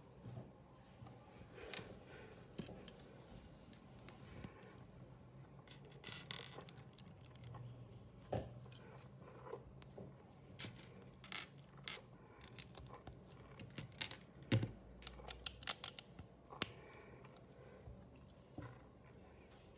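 Plastic LEGO bricks clicking and clattering as they are handled and pressed together. Irregular sharp clicks, with a quick run of louder clicks about fifteen seconds in.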